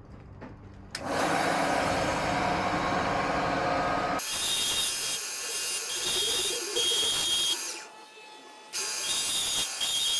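Wood lathe starting up about a second in and running; from about four seconds a hand-held turning chisel cuts the spinning wooden dowel blank with a high scraping hiss, lifting off briefly near eight seconds before cutting again.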